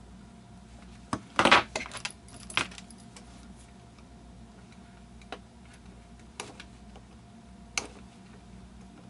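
Flaking and picking at melted plastic on an animatronic figure's head: a quick run of sharp clicks and scrapes about a second in, then a few single clicks spread out.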